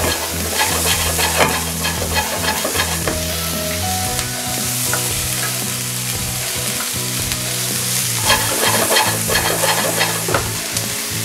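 Sliced onion sizzling as it is sautéed in a nonstick frying pan, stirred with a wooden spoon that scrapes and taps against the pan again and again.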